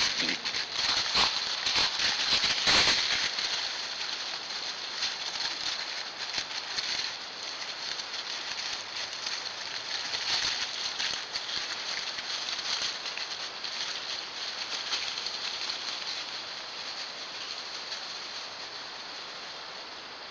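Dry leaf litter rustling and crackling, loudest over the first three seconds, then fainter scattered crackles over a steady hiss, as feral hogs root and walk through the leaves.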